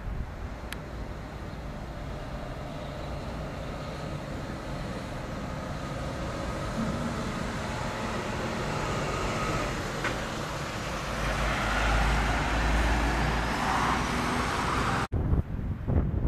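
Metre-gauge 2-10-2 steam tank locomotive 99 7232-4 standing in steam: a steady hiss with a low rumble that swells about two-thirds of the way through and a single clank about ten seconds in. Near the end it gives way abruptly to gusty wind on the microphone.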